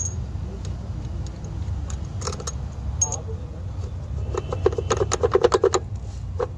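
Loose steel pulley bolts clinking together in a hand. There are a few single clicks, then a quick run of rattling clinks about four seconds in, over a steady low hum.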